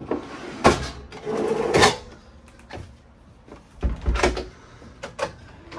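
Galley drawer and cabinet being worked: a pull-out pots-and-pans drawer with wire baskets is slid along its runners and shut, then a wooden cabinet door is opened. There are several knocks and clacks of wood and wire.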